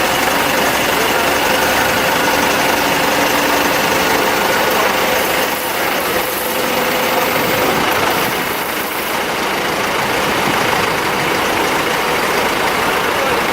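Diesel engine of a 900 kVA Cummins generator set running steadily, a loud, even noise.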